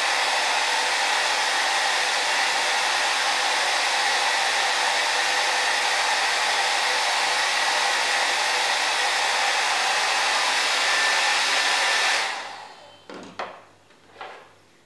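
Hair dryer blowing steadily on a poodle's wet coat, then switched off about three-quarters of the way through, its rush dying away over a second. A few light knocks follow near the end.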